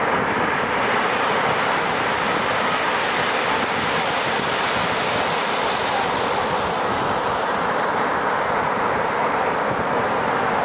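North Sea surf breaking and washing up a flat sand-and-pebble shore: a steady, unbroken rush of waves.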